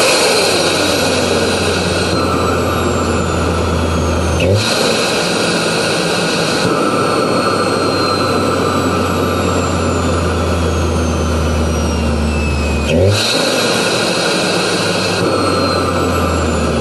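Big-turbo Audi S3 four-cylinder turbo engine (Garrett GT2260S) running, with a steady low engine drone and thin high turbo whistles that slowly fall in pitch. Twice, about four and a half seconds in and again about thirteen seconds in, there is a brief sharp burst as the engine note jumps, which fits the turbo flutter the car is fitted to show off.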